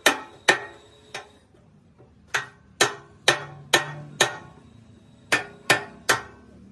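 Hammer blows on steel, about eleven sharp ringing strikes in three bursts of roughly two a second, as the damaged steel plate of an excavator boom is beaten with a bar held against it.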